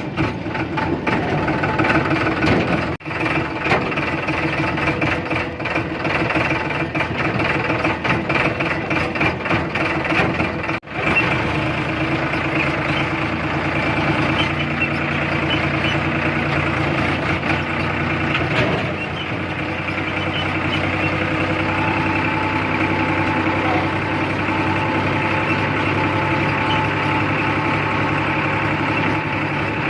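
A vehicle engine running steadily, with two brief dropouts about 3 and 11 seconds in.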